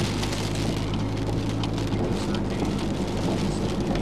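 Hurricane rain and wind gusts: a dense hiss with irregular gusty surges, over a steady low engine hum.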